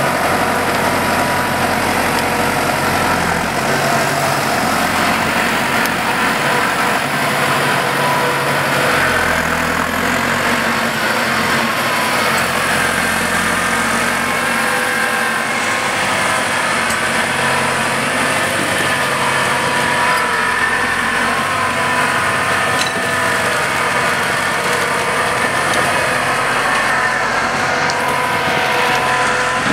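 Valtra N121 tractor's diesel engine running steadily under load as it hauls a loaded forestry trailer through the forest, its low engine note shifting in steps now and then.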